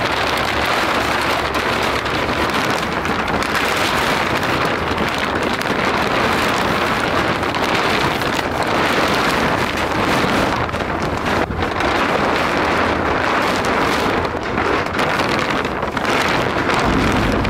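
Heavy 6 mil plastic sheeting crackling and flapping steadily as it is dragged over a wire hoop frame in the wind.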